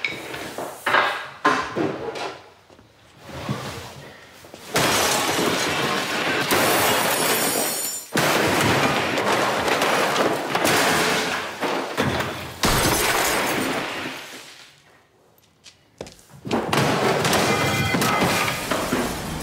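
Sledgehammers smashing the inside of a house: glass shattering and debris crashing, with a few sharp blows at first, then a long, dense stretch of breaking. It drops away briefly and then starts up again near the end.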